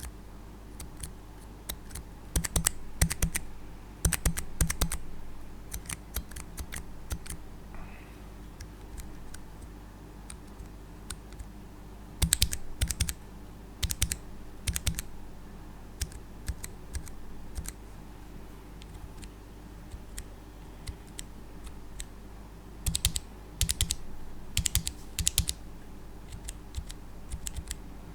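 Mechanical keyboard brown switches (tactile, non-clicky) from Greetech, Gateron, Outemu and Cherry being pressed in turn. Scattered single keystrokes alternate with three quick flurries of key strikes.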